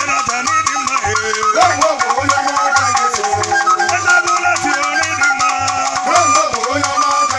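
Igbo ogene music: ogene gong playing with rattles and a steady low drum beat about twice a second, under a wavering melodic line.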